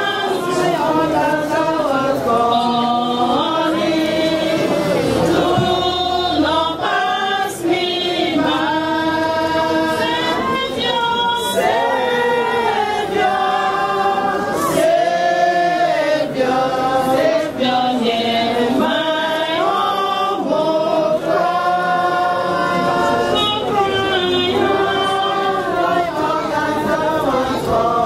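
A group of voices singing together unaccompanied: a slow song of long, held notes, sung without a break.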